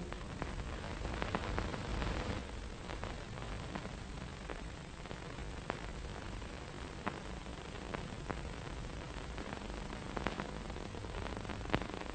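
Steady hiss with scattered crackles and clicks: surface noise of a 1930s film soundtrack where no music or dialogue plays.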